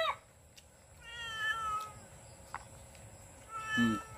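A cat meowing twice, each call a falling cry under a second long, about a second in and again near the end: a pet pestering for food. A brief low grunt comes just before the second meow.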